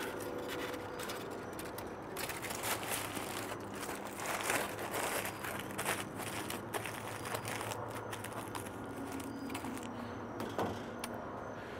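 Aluminium foil crinkling and crackling as a foil wrap is peeled back and crumpled away by gloved hands, the rustling thinning out near the end.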